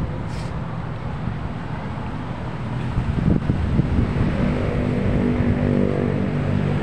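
Low rumble, with a motor engine's steady hum building about three seconds in and holding on.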